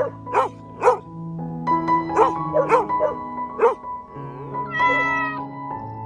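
Dog barking, about eight short sharp barks over the first four seconds, then a single cat meow about five seconds in, over background music.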